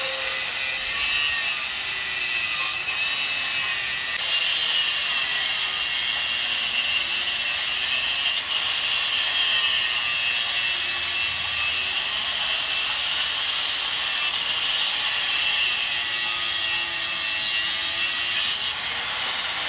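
A power tool running steadily with a loud hiss and a faint whine that wavers up and down.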